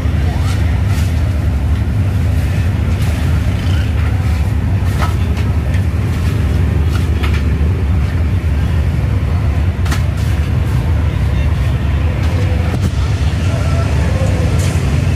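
Steady low roar of the burners under large karahis of frying sev, with the hiss of hot oil and a few sharp clinks of metal utensils against the pans.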